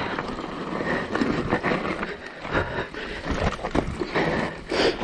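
Mountain bike ridden over wet roots and mud: irregular rattling and knocking from the bike, chain and tyres, with a brief louder rush near the end.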